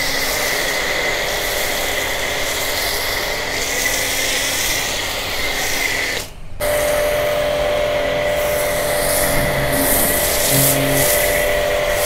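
Starq W8 2800 W electric pressure washer running and spraying foam through a foam cannon: a steady hissing spray over the machine's constant hum. The sound breaks off for a moment a little past halfway, then carries on.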